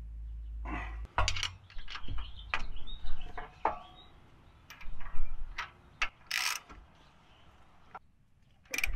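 Wrench and bolt hardware on a MetalCloak sway bar disconnect link clicking and clinking as the bolt is worked. It is an uneven run of short metallic clicks and scrapes, with a low rumble in the first second.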